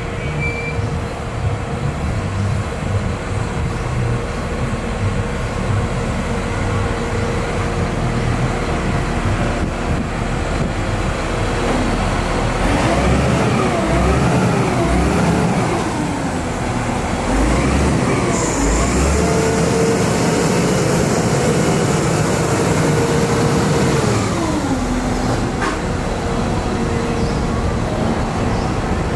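A motor vehicle's engine running. About halfway through, its pitch climbs and drops several times as it shifts up through the gears, then it holds a steady higher note before winding down.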